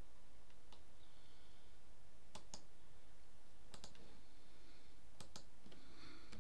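Computer mouse clicking: four pairs of sharp clicks about a second and a half apart, over steady background noise.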